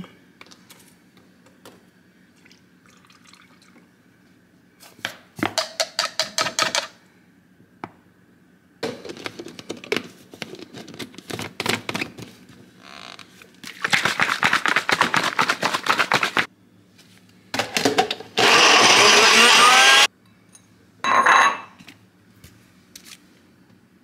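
NutriBullet blender blending berries in several short pulses, then one longer, loudest run of about two seconds with a wavering motor pitch, and one last brief pulse.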